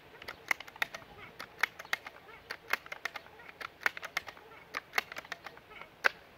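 Seneca Dragonfly Mk2 multi-pump air rifle being pumped up: its pump lever clacks about once a second with lighter clicks in between, building air pressure for a shot at ten pumps. The strokes end with a sharp clack about six seconds in.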